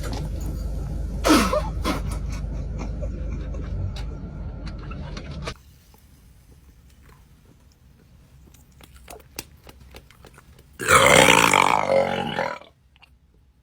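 A person lets out a long, loud burp lasting about two seconds, about eleven seconds in, forced up by gulping a bottle of fizzy Sprite. Before it, a steady low background hum cuts off suddenly about five seconds in, leaving a quiet stretch with faint clicks.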